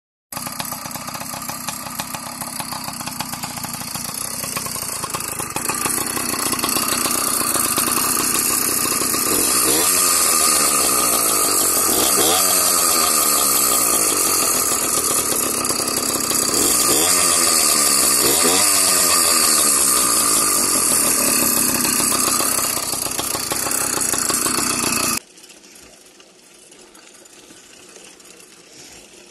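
YD100 two-stroke bicycle engine running with a loud, raspy buzz, revved up and dropped back about four times. The sound cuts off abruptly near the end, leaving only a faint, even rushing noise.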